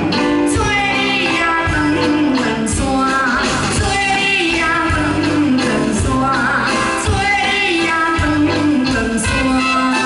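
A woman singing into a handheld microphone over a live band with drums, amplified through a stage sound system.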